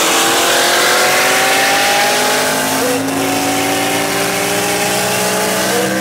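Race cars at full throttle, heard from inside a chasing car: the engine note climbs steadily through the gears, with an upshift about three seconds in and another near the end.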